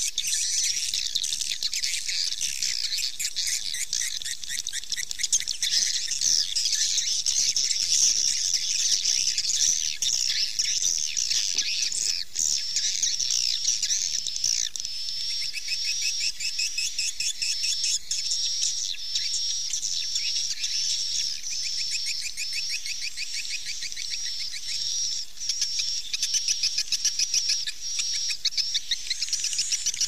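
Swiftlet lure call (suara panggil walet): a dense, continuous twittering of rapid high-pitched swiftlet chirps, played to draw swiftlets to a swiftlet house.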